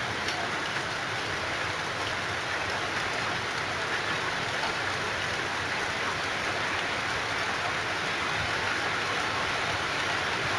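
Steady rain falling: an even, unbroken hiss of many drops, with the odd single drop ticking out above it.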